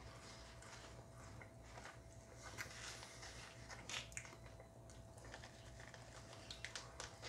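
Quiet, scattered sounds of a man biting and chewing beef jerky, with soft crinkles from the plastic bag that holds it, over a faint steady hum. The clicks and rustles come more often near the end.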